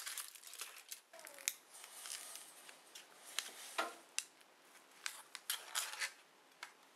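Aluminium foil crinkling as it is peeled back off a foil baking pan, then a disposable aluminium foil pan crackling and clicking as it is handled and flipped over onto a cutting board. The sound is a scatter of short crinkles and sharp clicks.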